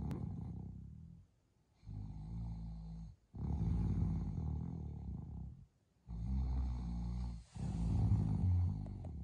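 A person snoring, a snore every couple of seconds with short quiet breaths between.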